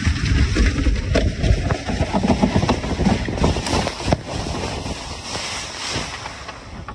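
A plastic kayak hull sliding fast down a snowy hill, with a loud scraping rumble of snow and frozen grass rushing under and against the hull and many small knocks from bumps. Wind buffets the microphone, and the noise eases a little near the end as the run slows in the tall grass.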